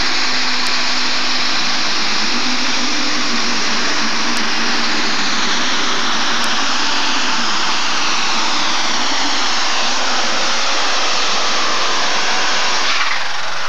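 Super stock pulling tractor's engine running flat out under full load as it drags the weight sled down the track, a loud steady noise that drops away near the end.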